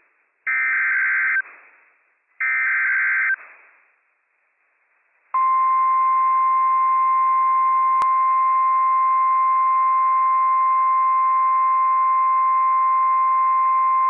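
NOAA Weather Radio emergency alert: the last two SAME header data bursts, short raspy beeps about a second apart, then after a brief pause the single steady 1050 Hz attention tone, running about nine seconds and heard in full to its end.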